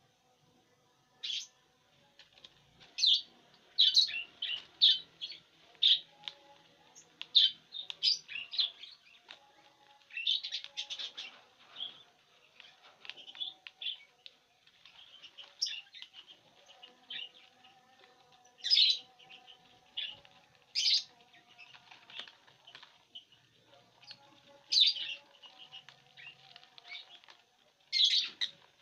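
Lovebirds chirping in short, sharp, high calls, many in quick succession and some louder than others, with dry corn husks rustling as the birds pull at them.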